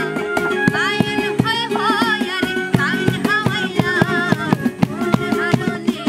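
A woman singing a Bengali folk song, accompanied by acoustic guitar and hand percussion (cajón) striking a steady beat.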